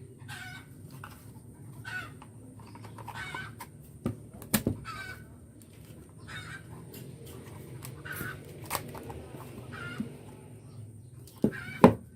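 Chickens clucking again and again over a low steady hum, with a sharp knock about four seconds in and a louder pair of knocks near the end.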